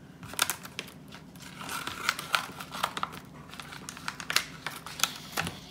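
Clear plastic vacuum-sealed pouch crinkling as it is handled and pulled open by hand, with irregular sharp crackles.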